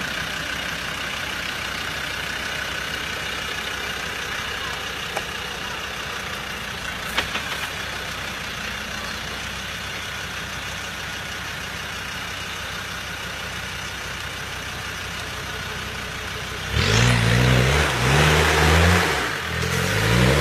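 Land Rover Defender 90's engine running steadily at low revs while the off-roader creeps over the muddy course. About three-quarters of the way in it revs hard in several rising and falling surges, driving the wheels through a deep rut.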